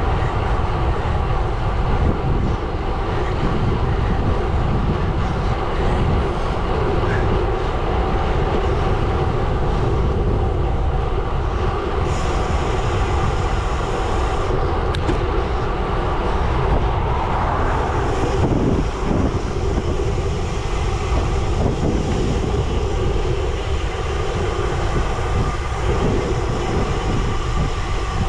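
Gravel bike rolling steadily at speed on a gravel road: a continuous rumble of tyres on loose gravel, with wind on the bike-mounted microphone.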